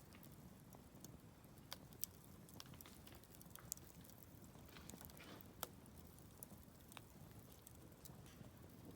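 Wood campfire crackling softly, with a handful of sharp pops scattered irregularly through it, the loudest about two, four and five and a half seconds in.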